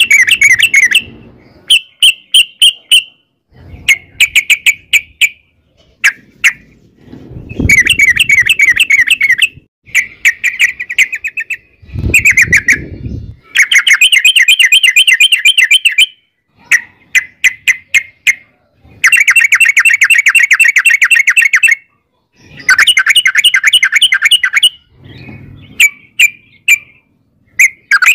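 Yellow-vented bulbul (trucukan) singing its long rapid chattering song: loud runs of fast notes, each about one to two seconds long, repeated again and again with short pauses between them.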